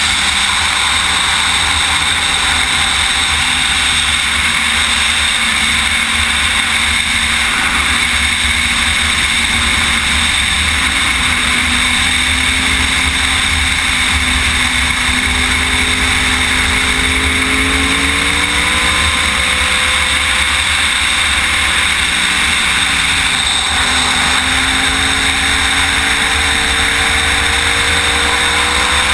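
Wind rushing steadily over the onboard camera microphone of a sportbike at track speed. Under it the bike's engine is faintly heard, its pitch climbing slowly as it accelerates, once through the middle and again near the end.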